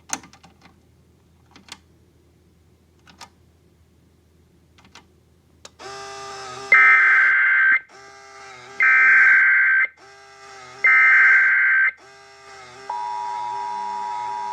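Emergency Alert System broadcast on NOAA Weather Radio, opening with a few faint clicks. Three loud, screechy one-second bursts of SAME header data follow, a second apart, which encode the flood warning. About thirteen seconds in, the steady 1050 Hz weather radio warning alarm tone begins.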